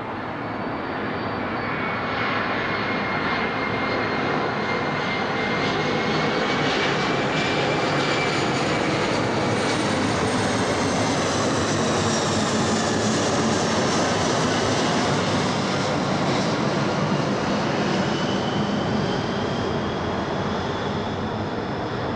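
Four-engine Airbus A340 jet airliner passing low overhead on landing approach with gear down: a steady jet roar that swells to its loudest as the plane goes over, with a high whine that falls in pitch as it passes, easing slightly near the end.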